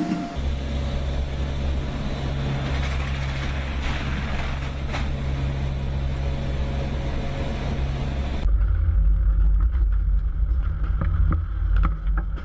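Steady low mechanical rumble; about eight and a half seconds in it cuts to a louder, deeper rumble with scattered knocks.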